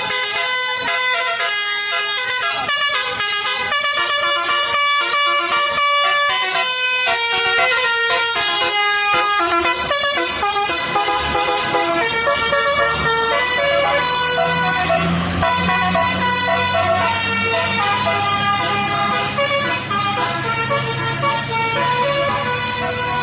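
Bus "telolet" musical horn (Basuri) playing a melody of quick stepped notes. A low engine rumble joins underneath about halfway through.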